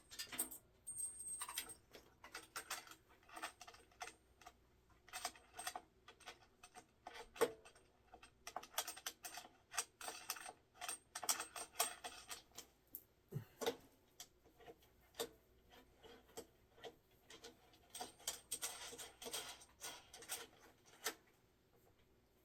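Irregular small metallic clicks, taps and scrapes of small hardware being handled: a washer and nut being fitted by hand onto a threaded fitting.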